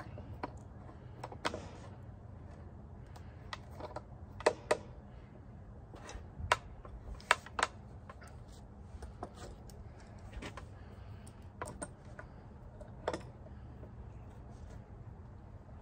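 Scattered sharp clicks and knocks of metal clamps being set and screwed tight against a wooden recurve-bending jig, pressing a bow limb into its curve. The loudest knocks come in a cluster around the middle and once more near the end.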